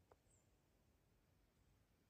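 Near silence: faint background hiss, with one soft click just after the start.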